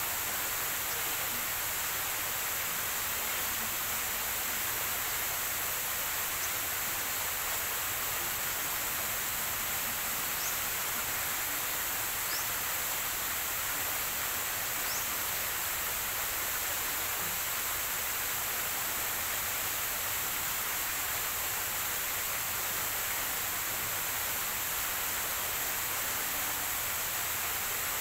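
Steady, even outdoor background hiss, with a bird chirping faintly three times, short rising notes about a third of the way in and around the middle.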